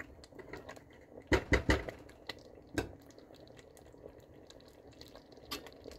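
Lentil and pasta soup bubbling as it simmers in a stainless steel pot, while a silicone spatula stirs it. A few sharp knocks come about a second and a half in, near three seconds and near the end.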